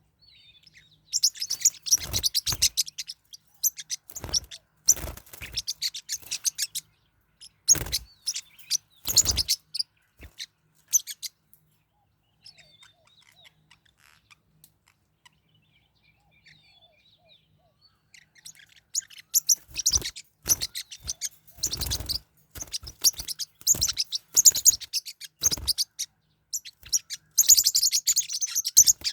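Forpus parrotlets giving rapid, harsh chirps in dense bursts as they fight, with a quieter spell in the middle. The chirping is mixed with sharp thumps.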